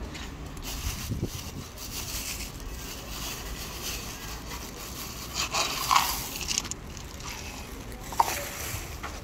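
Plastic bag rustling and crinkling as dry cat food is handled and shaken out, louder about six seconds in, with a sharp click a little after eight seconds.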